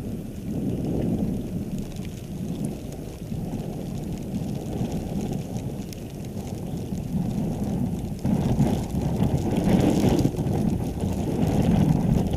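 Gusty wind buffeting the microphone: a rough, rumbling roar that swells in gusts and grows louder about eight seconds in.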